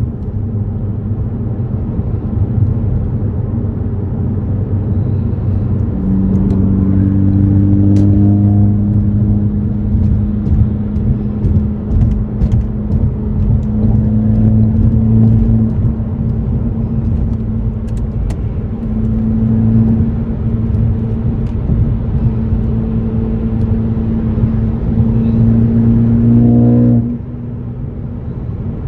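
2018 Ford Focus ST's turbocharged 2.0-litre four-cylinder running through an AWE axle-back exhaust while driving. The engine note holds steady and climbs slowly in pitch for about twenty seconds, then drops suddenly near the end.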